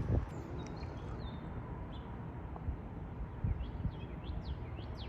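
Low, steady wind rumble after a gust dies away just at the start, with several short, high, falling bird chirps from about three seconds in.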